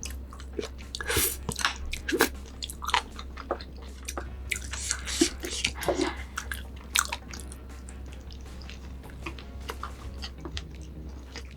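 Close-miked eating: biting and chewing with a run of sharp, crunchy bites in the first seven seconds, then quieter chewing, over a steady low hum.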